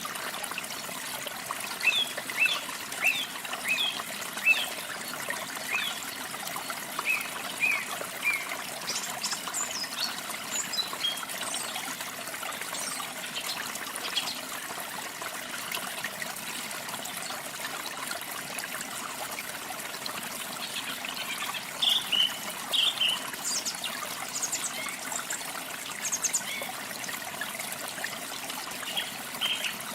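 Steady trickling and splashing of falling water, with small birds singing short high chirps in bursts over it, busiest in the first third and again past the middle.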